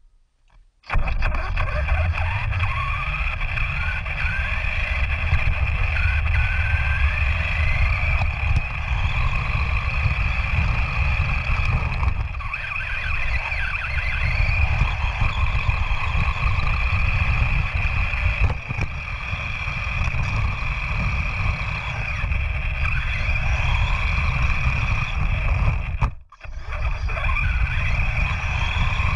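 RC buggy driving, heard from a camera mounted on the car: a heavy rumble of tyres and wind with a motor whine that rises and falls with the throttle. The sound starts about a second in and cuts out briefly near the end.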